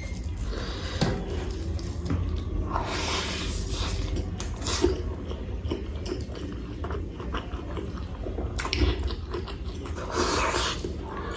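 Close-miked eating: wet chewing and biting of rice with potato-and-cauliflower curry, with many small mouth clicks and a few louder smacking, crunchy moments about three, five, nine and ten seconds in.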